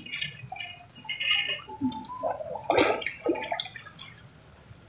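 A hooked common carp splashing and thrashing at the surface of the water in brief, irregular bursts.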